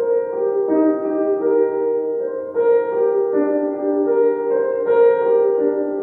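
Grand piano played slowly: sustained chords and melody notes, with a new note or chord struck every half second to a second.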